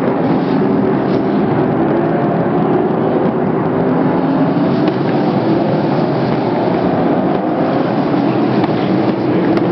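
Sprint car V8 engines running at racing speed: a loud, steady drone of several engines at once, their pitches drifting slightly up and down.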